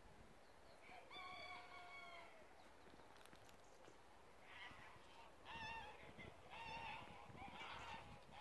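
Faint bird calls. One long call about a second in, then four short calls at roughly one a second in the second half.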